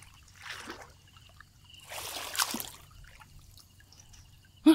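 Pond water splashing and trickling in two short bouts as a gill net is lifted and handled while wading, then a brief loud voice-like sound right at the end.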